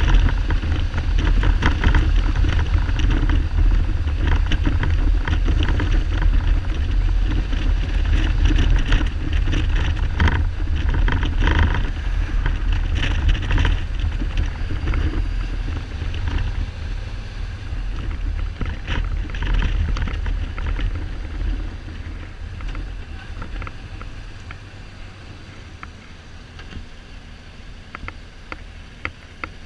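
Wind buffeting the helmet-side camera mic over the low rumble of the Kawasaki Z1300's inline six, which the rider found was not running on all cylinders. The noise dies down from about halfway through as the bike slows, with a few light clicks near the end.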